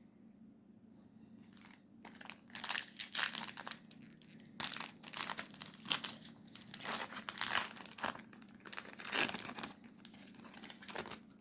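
Foil trading-card pack wrapper crinkling in irregular bursts as it is torn open and crumpled by hand.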